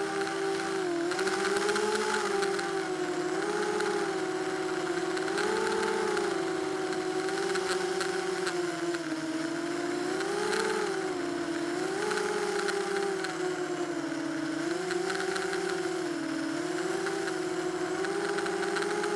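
Small FPV racing quadcopter's electric motors and propellers whining, the pitch swinging up and down every second or two with the throttle, heard through the craft's own onboard camera.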